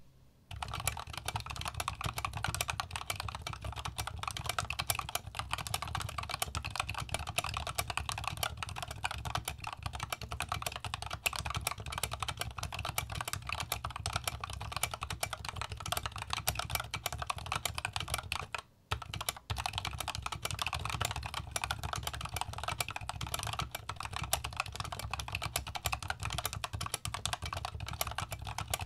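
Typing sound test on a Machenike KT68 Pro, a plastic-cased 65% mechanical keyboard with factory-lubed North Pole Yellow linear switches, translucent OSA-profile keycaps and stock plate-mounted stabilizers. It is typed on fast and without letup, a dense stream of key clacks with one brief pause about two-thirds of the way through.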